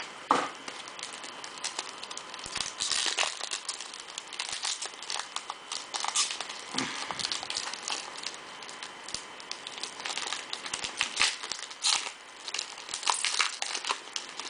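Shiny trading-card pack wrapper crinkling and crackling in the hands as it is opened and handled, in quick irregular crackles.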